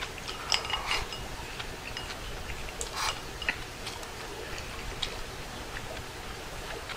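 Chopsticks clicking and clinking lightly against a ceramic rice bowl during eating, scattered small ticks, with short noisy mouth sounds of eating just under a second in and about three seconds in.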